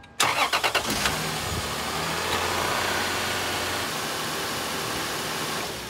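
A 2005 Lexus IS300's 3.0-litre straight-six engine cranks for under a second, catches, and then idles steadily, fading near the end. It is being run right after an oil change to work the air out and fill the new filter, after which the oil level drops and needs topping up.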